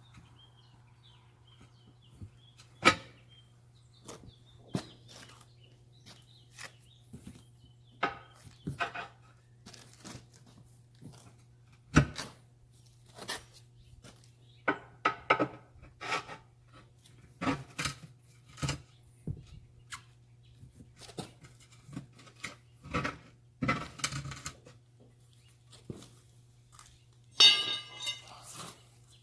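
Tire irons knocking and scraping against the steel rim of a rear tractor wheel as the tire bead is levered back on bit by bit: irregular clinks and knocks, the loudest about 3 and 12 seconds in, and a longer rasping scrape near the end. A faint steady low hum runs underneath.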